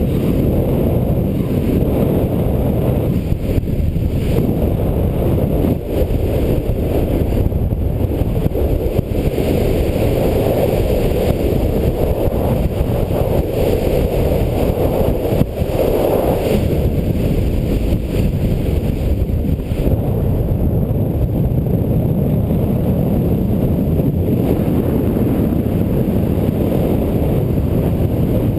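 Steady, loud wind rushing over the microphone during a skydive.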